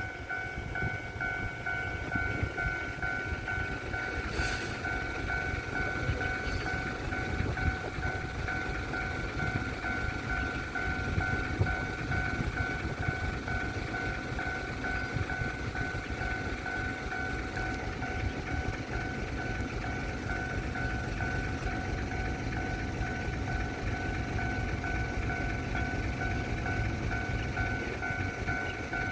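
Railway level-crossing warning signal sounding continuously as a steady ringing tone, with heavy wind rumble on the microphone.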